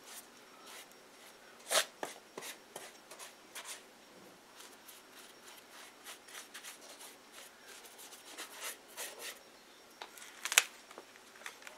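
Close handling noise: knit shirt fabric rubbing and brushing right at the microphone, with scattered light clicks and two sharper knocks, one about two seconds in and a louder one near the end.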